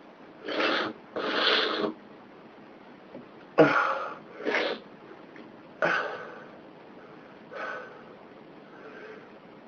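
A person sneezing over and over: a series of short bursts, the sharpest about three and a half and six seconds in, growing weaker toward the end.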